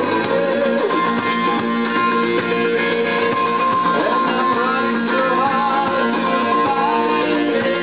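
Live rock band playing, with strummed guitars carrying the song.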